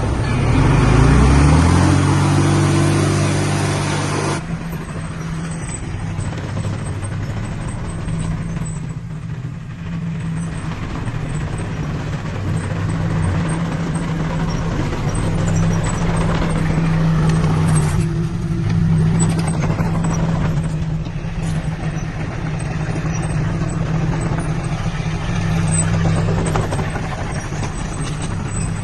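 Heavy diesel engine revving up, its pitch rising over the first few seconds. About four seconds in the sound changes abruptly, and the engine then runs steadily at a lower pitch with slight rises and falls.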